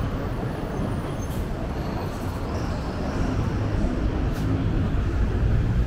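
City street traffic: a steady rumble of motor vehicles on the adjacent road, with a vehicle's engine growing louder in the second half.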